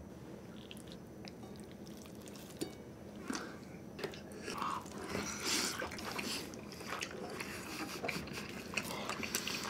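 Close-miked eating sounds: faint at first, then from about three seconds in, scattered clicks and soft wet sounds as slices of wagyu with runny egg yolk are pulled up with chopsticks and a fork and chewed.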